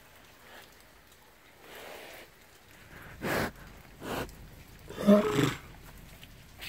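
An animal behind enclosure bars gives two short breathy bursts, then a louder, short call with a clear pitch about five seconds in.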